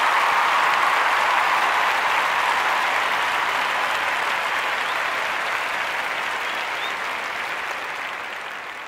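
Crowd applause, a steady dense clapping that slowly fades out toward the end.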